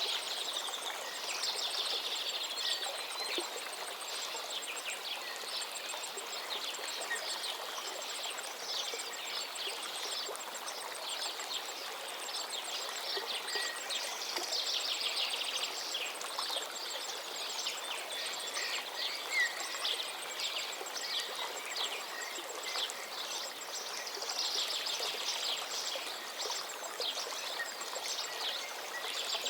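River water flowing steadily, with many birds chirping and singing over it in quick, short phrases.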